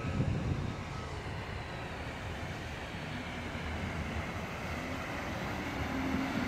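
Steady low rumble of heavy equipment running, with a vehicle's reversing beeps sounding twice in the first second or so.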